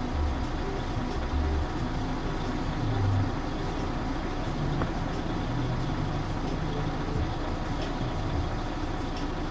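Vehicle engine idling steadily with a low rumble.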